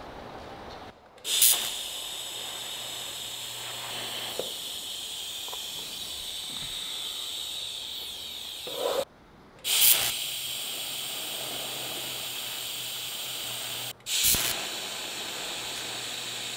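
Electric arc welding on a steel motorcycle frame tube: a steady hiss with a faint hum under it. It is broken three times by short dropouts, near the start, about 9 seconds in and about 14 seconds in, and each is followed by a brief louder start.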